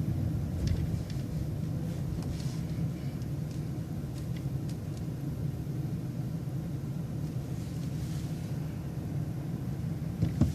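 City transit bus engine running steadily with a low rumble.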